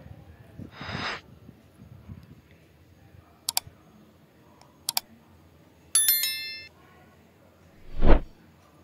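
Subscribe-button overlay sound effects: two double mouse clicks, then a bright bell chime about six seconds in, then a whoosh near the end, the loudest sound. About a second in there is a brief scrape from a ladle stirring in a pot.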